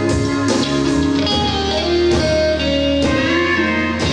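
Live band music: electric guitar playing an instrumental phrase over bass and drums between the vocal lines of the song.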